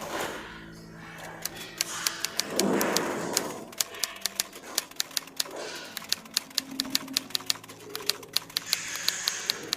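Rapid, irregular clicking, several clicks a second, from swiftlets flying and echolocating in the dark house. A short rustling noise about two and a half to three and a half seconds in is the loudest part.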